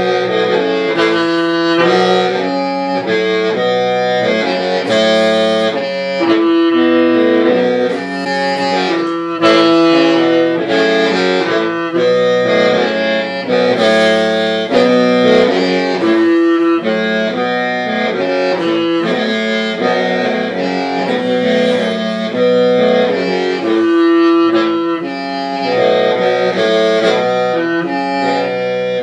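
Hmong qeej, a bamboo free-reed mouth organ, playing a melody of held notes that change in steps over a steady drone.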